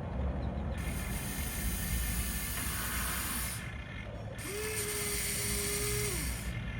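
Electric motor and plastic gearbox of a Huina RC construction model running in two spells, each about three seconds long, with a short pause between. In the second spell a steady whine sets in and drops away as the motor stops.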